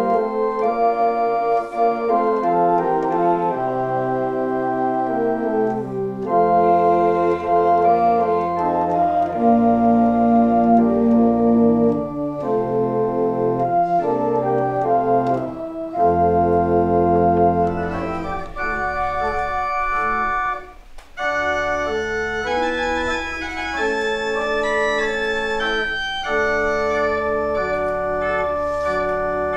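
Organ playing slow, held chords, with a deep pedal bass coming in several seconds in. The music breaks off briefly about two-thirds of the way through and resumes in a higher register.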